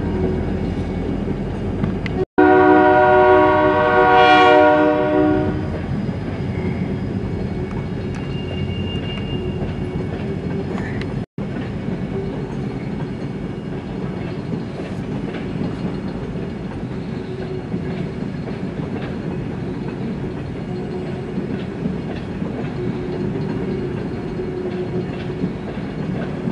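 Lake State Railway 301's diesel locomotive horn blowing a chord for the first five seconds or so, then the freight train rolling past, its cars clattering steadily over the rails.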